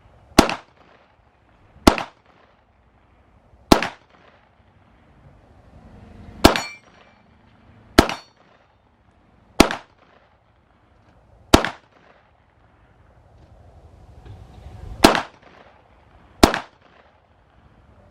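Nine single shots from a PSA Dagger 9mm pistol, fired at an uneven pace of one every one and a half to three and a half seconds, at steel popper targets. One shot near the middle is followed by the clang of struck steel ringing.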